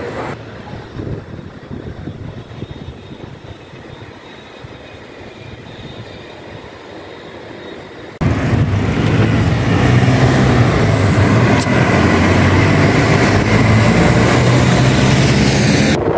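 Faint street background, then about halfway a sudden jump to loud wind rumble on a handheld phone microphone with a steady low hum underneath.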